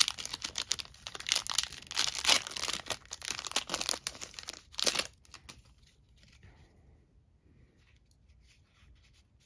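Foil trading-card booster pack wrapper torn open and crinkled by hand, a dense crackling that stops about five seconds in. Afterwards only a faint rustle of the cards being handled.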